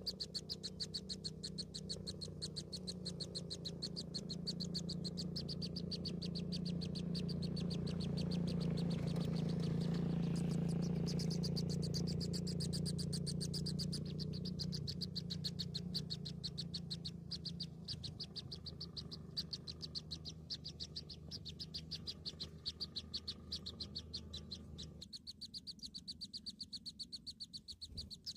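Nestlings calling with a fast, steady run of short, high cheeps, many a second, over a low steady hum.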